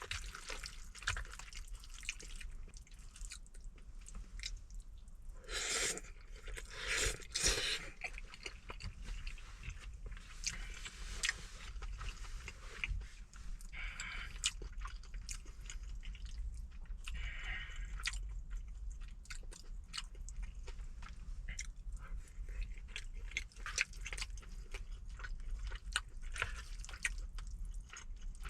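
Close-up chewing and eating: wet mouth sounds and smacking of a mouthful of saucy braised chicken and rice, with small clicks throughout and a few louder bursts about six to eight seconds in. A steady low hum runs underneath.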